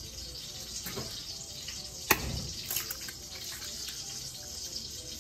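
Eggs being cracked into a ceramic bowl by hand: one sharp tap of shell about two seconds in, with a few lighter clicks of shell, over a faint steady hiss.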